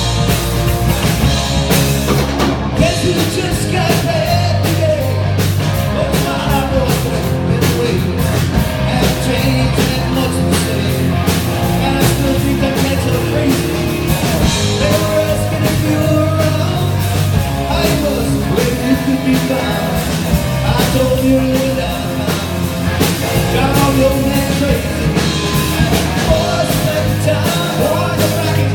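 Rock music: an instrumental passage with drum kit and electric guitar over a steady beat.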